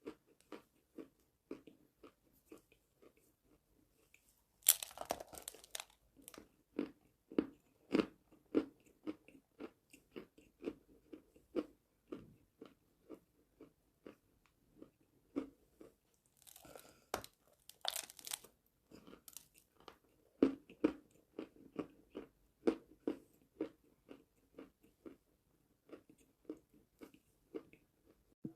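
Close-miked chewing of edible chalk: a steady run of small dry crunches, with louder, longer crunches about five seconds in and again around seventeen to eighteen seconds.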